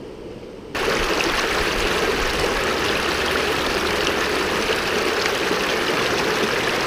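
Fast, shallow river water running over rocks in a riffle close to the microphone: a loud, steady rush that cuts in suddenly under a second in.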